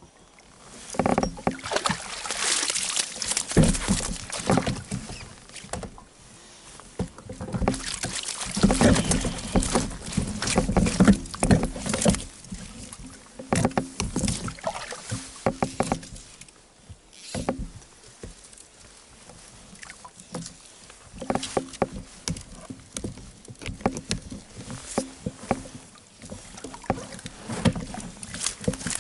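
Irregular splashing and sloshing of water at the side of an inflatable fishing boat, in uneven surges, with scattered knocks and rustles of fishing gear being handled.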